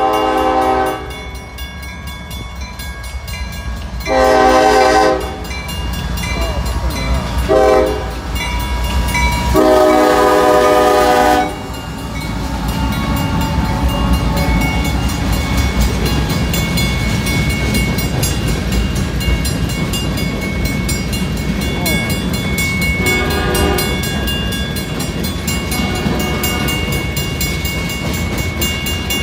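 A freight locomotive's air horn sounds four blasts for a grade crossing: two long, one short and a final long one. Then the train rumbles past with steady wheel and rail noise as its freight cars roll by, and the horn sounds briefly once more about 23 seconds in.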